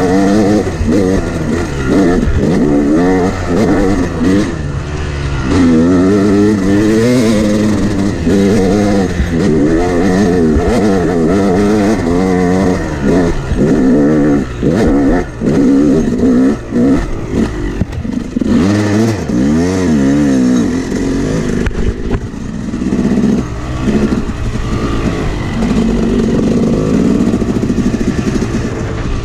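Yamaha YZ250X two-stroke single-cylinder dirt bike engine revving up and down continually under the rider's throttle on a rough trail, its pitch rising and falling with each blip. About two-thirds of the way through, the revs drop low and climb back up.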